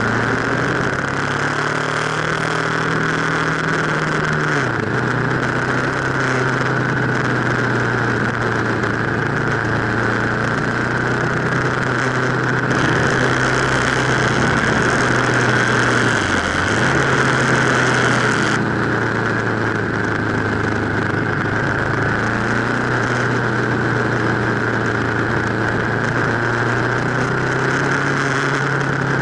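Aprilia RSV1000 Factory's V-twin engine running at a steady road speed, with wind and road hiss. The engine note drops about five seconds in and dips briefly again around sixteen seconds. The hiss grows louder for several seconds in the middle.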